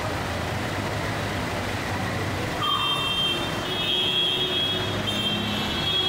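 Heavy rain and vehicles moving along a flooded road: a dense, steady hiss of downpour and water with traffic running through it. About halfway in, a steady high-pitched whine joins and holds.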